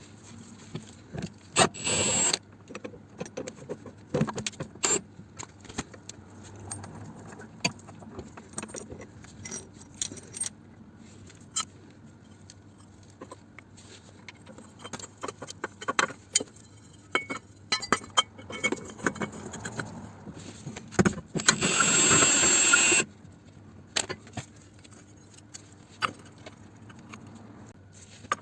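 Metal tools and parts clinking and knocking during work under a car, with two short bursts of a pneumatic impact wrench running bolts in, about two seconds in and about 22 seconds in.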